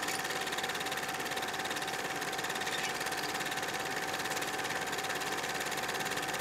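Steady rapid mechanical clatter of a running film projector, with a constant whine under the fast ticking.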